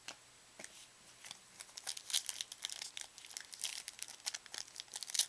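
A trading card pack's wrapper being torn open and crinkled by hand: a few light clicks, then dense crinkling from about a second and a half in.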